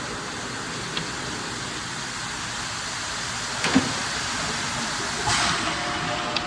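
Delta Machines ISB 80 single-stage injection stretch blow molding machine running with a steady mechanical noise. A sharp knock comes a little before four seconds in, and a short hiss of air follows about five seconds in.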